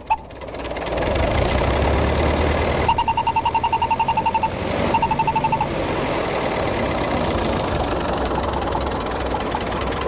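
1915 Dodge Brothers four-cylinder engine running, with a Buell explosion whistle sounding twice: a rapid pulsing whistle for about a second and a half, then again briefly. Each pulse is a compression stroke forced through the whistle's metered orifice from the cylinder it is screwed into.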